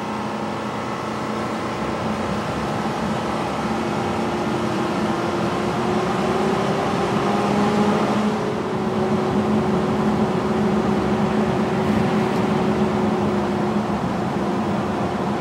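Motorhome engine and road noise heard from inside the cab while driving through a highway tunnel: a steady drone with a low hum and a faint tone drifting slowly in pitch.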